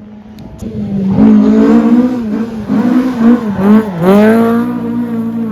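Rally car engine revving hard through a bend: its note rises and falls several times with gear changes and throttle lifts, climbs sharply about four seconds in, then holds steadier.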